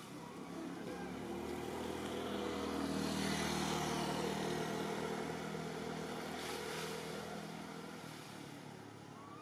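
A motor vehicle passing: a steady engine hum that swells over about three seconds and then fades away.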